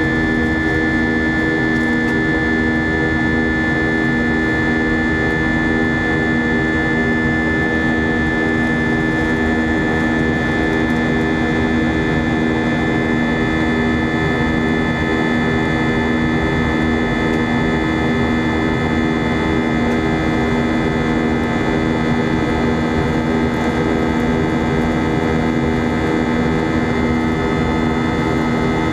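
Airbus A320 jet engines and airflow heard from inside the passenger cabin in flight: a steady, loud rushing drone with several constant engine tones running through it.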